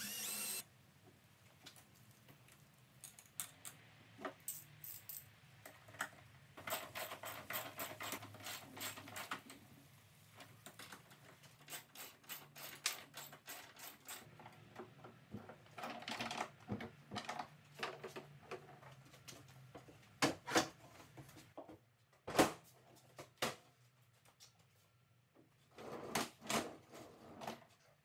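Socket ratchet wrench clicking in repeated quick runs as lag screws are tightened through swivel-caster plates into a plywood cart frame. A cordless drill whirs for a moment at the very start, and a few louder knocks and clunks come in the second half.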